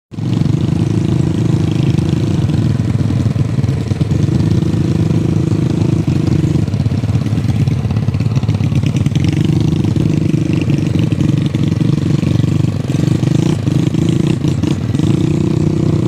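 Motorcycle engine running while riding along a rough dirt track, its note easing off and picking up again several times.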